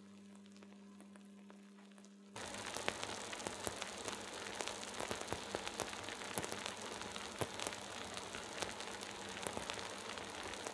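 A faint steady hum for about two seconds, then the hot, freshly baked tomato tart sizzling and crackling with dense fine pops as its cheese and tomato juices bubble.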